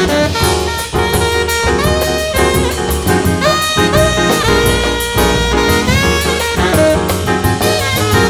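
Instrumental jazz background music with a saxophone and brass melody over a drum kit, playing steadily.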